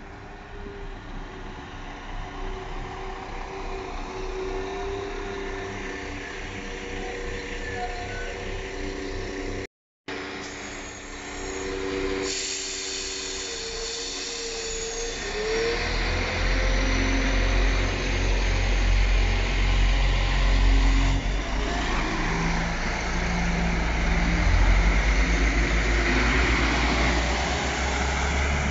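Diesel multiple unit at a platform: its engines run with steady whining tones at first, then, after a brief break, they power up into a loud, deep rumble from a little past halfway as the train pulls away and its carriages pass close by.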